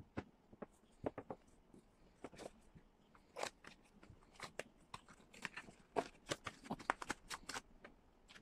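Cardboard packaging of a tablet box being handled: many irregular taps, clicks and rustles as the box, its cardboard insert and the accessories inside are picked up and set down.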